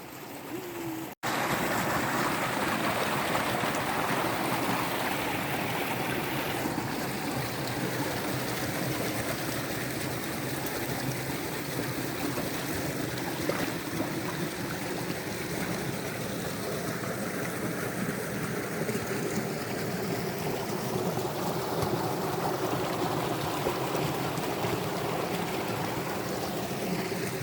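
Forest creek running over mossy rocks and small waterfalls: a steady rush of water. Quieter for the first second, it cuts out for an instant, then comes back louder and steady.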